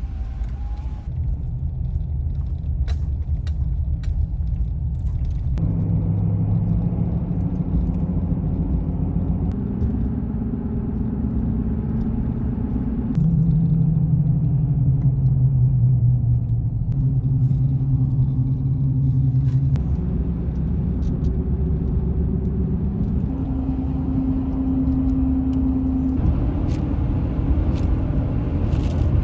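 Pickup truck driving on the road: steady low engine and road rumble, the engine note shifting up and down in steps several times as speed and gears change.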